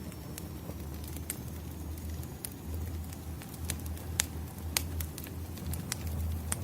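Wood fire burning and crackling: irregular sharp pops and snaps over a low steady rumble, with the loudest pops a little past the middle.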